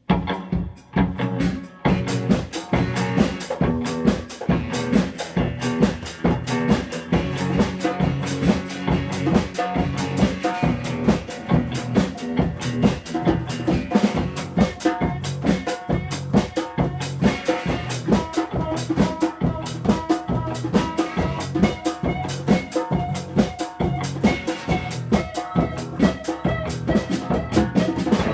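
A band playing live at a practice jam: a drum kit keeping a steady rock beat with snare and bass drum under sustained instrument notes, starting abruptly.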